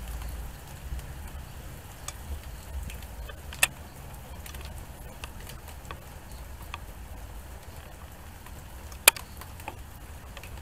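Steady thunderstorm rain, with drops ticking sharply on a nearby surface. Two louder drips stand out, about three and a half and nine seconds in.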